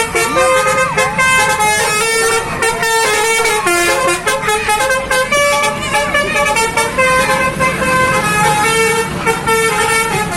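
Bus's Basuri 'telolet' multi-tone horn playing a loud melody of stepped notes, with a few sliding notes near the start and the bus's engine rumbling underneath.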